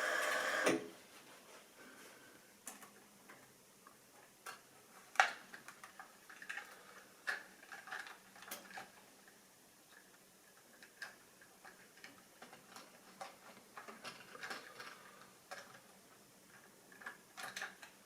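A model train's steady whir cuts off under a second in, followed by scattered light clicks and taps at irregular intervals.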